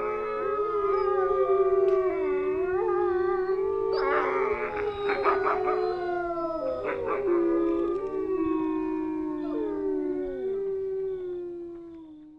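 Several dogs howling together, long overlapping howls that slowly sink in pitch and fade out near the end.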